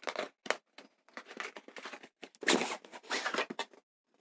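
Cardboard knife packaging being handled and opened: a run of short scrapes and rustles of cardboard, with a longer sliding scrape about two and a half seconds in.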